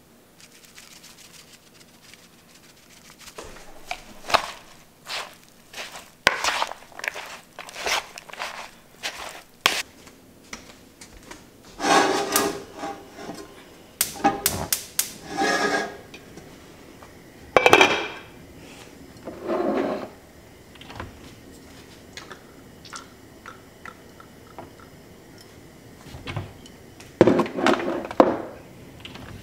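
Kitchen cooking sounds: a run of light taps and knocks, then several louder clatters of cookware and utensils, a pan and its glass lid handled on a gas stove and items moved in a cabinet near the end.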